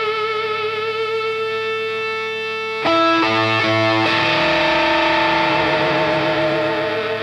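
Electric guitar played alone: a held chord wavering in pitch, then a sharp new strum about three seconds in, a few quick notes, and sustained ringing notes.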